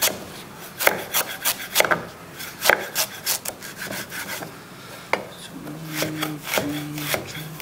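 Blunt kitchen knife chopping ginger into fine pieces: irregular knocks of the blade against the board, with scraping between strokes.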